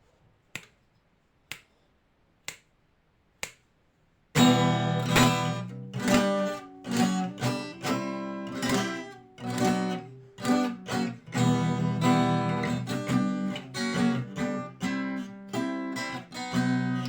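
Four sharp clicks about a second apart count in the beat, then an acoustic guitar starts strumming chords about four seconds in, playing a song's introduction.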